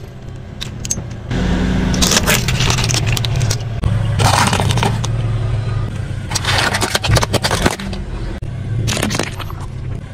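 A car tyre rolling over and crushing objects on asphalt, with the car's engine running low and steady underneath. About four separate bursts of crunching, cracking and crackling come as the objects, such as plastic items, eggs and apples, break under the tyre.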